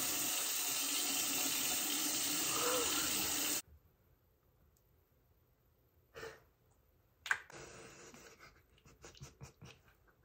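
Bathroom sink tap running in a steady rush for about three and a half seconds, then shut off sharply. A few faint splashes follow as water is rubbed over the face.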